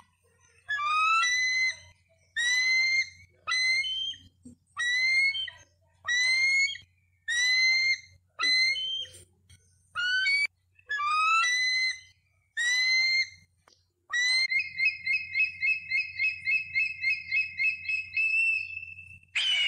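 Bald eagle calling: about a dozen short, high whistled calls, roughly one a second. Then comes a fast chattering run of notes, about four to five a second, and a louder call that falls in pitch starts just before the end.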